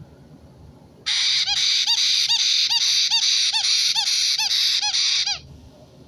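White-bellied caique chicks begging: a loud, continuous raspy call pulsing with about ten short arched chirps, a little over two a second. It starts about a second in and cuts off suddenly after about four seconds.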